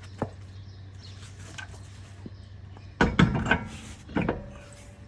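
Car wheel being lifted and fitted onto the hub studs: a light knock about a quarter second in, then a cluster of loud clunks about three seconds in and another just after four seconds, the last followed by a brief metallic ring.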